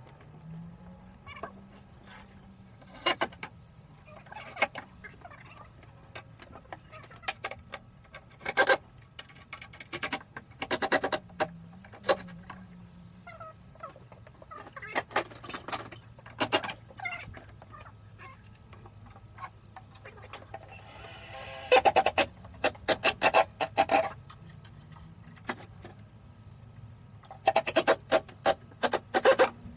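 Fast-forwarded sound of a wooden display cabinet being fitted: scattered sharp knocks and clicks of wood and tools, with two spells of rapid clatter, one about two-thirds of the way through and one near the end.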